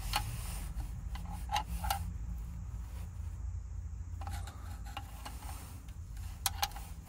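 Hand tools working metal: light scraping and rubbing with a few sharp clicks, over a low steady hum.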